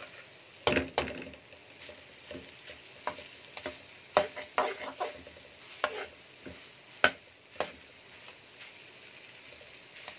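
Chickpeas and chicken sizzling steadily in masala in a metal pan while being sautéed, with irregular scrapes and knocks of a metal spoon stirring against the pan. The loudest scrapes come about a second in, near the middle and about two-thirds through.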